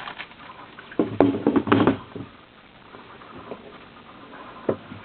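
Craftsman 26-inch take-along toolbox being rolled on its wheels, with a burst of clattering knocks for about a second, then quieter rolling and a single click near the end.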